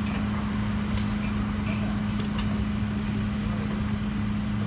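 Rear-loader garbage truck's engine running steadily with a constant low hum, with a few faint clicks over it.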